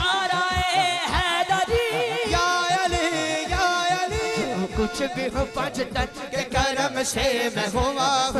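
A man singing a naat in long, drawn-out melodic lines over a steady low beat.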